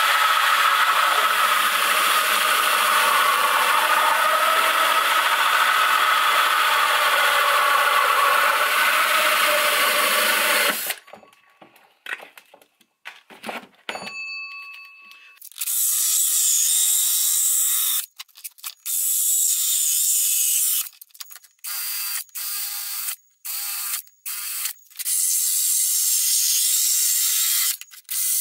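Cordless drill with a hole saw cutting through a thin clear plastic box. It runs continuously for about eleven seconds, then starts and stops in short bursts, with further runs of cutting in the second half.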